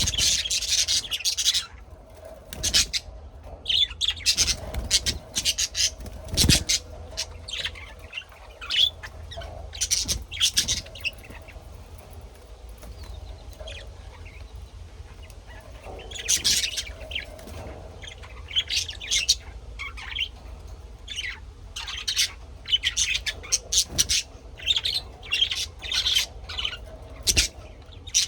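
Birds chirping and squawking in clusters of short, high calls, with a lull of a few seconds about halfway through.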